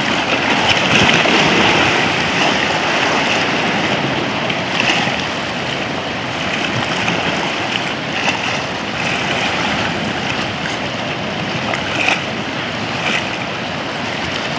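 Sea waves washing around rocks in shallow water: a steady rushing surf, louder for the first couple of seconds, with a few brief splashes.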